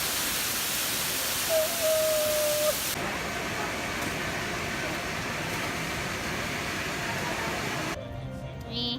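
Steady rushing noise, its character changing abruptly about three seconds in and again near the end, with a short high tone about two seconds in.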